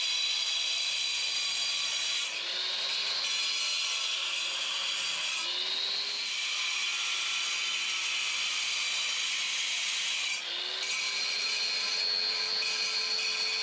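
Angle grinder cutting into masonry: a steady high whine whose pitch dips and climbs back three times, about two, five and ten seconds in, as the disc bites under load and is eased off.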